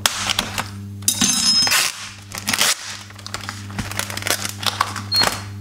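Clear plastic tofu tray and its film lid crinkling and crackling in irregular bursts as it is handled and opened, over a steady low hum.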